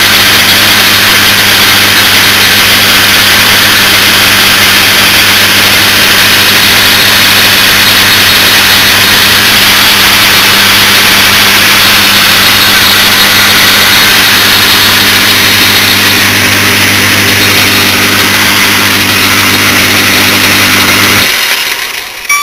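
1942 South Bend metal lathe running under its electric motor, with a steady mains hum and a hiss of machining while turning acetal plastic. The motor cuts off about 21 seconds in.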